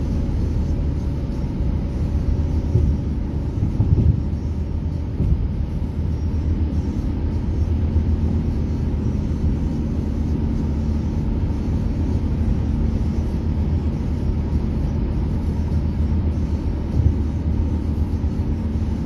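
Steady low rumble of tyre and engine noise inside a car's cabin at highway speed.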